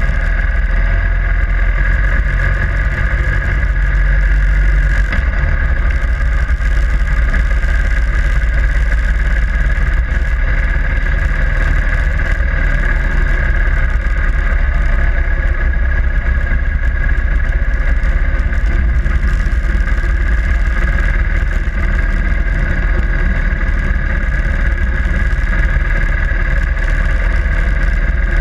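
Harley-Davidson Sportster Iron 883's air-cooled V-twin engine running steadily while the motorcycle is ridden.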